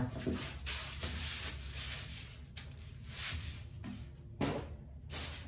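Thin kite paper rustling and sliding across a wooden board as the sheets are smoothed flat by hand, with a sharper crackle of paper near the end.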